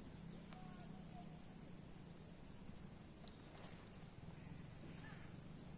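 Faint outdoor night ambience: a steady high-pitched insect drone over a low steady hum, with a few faint ticks.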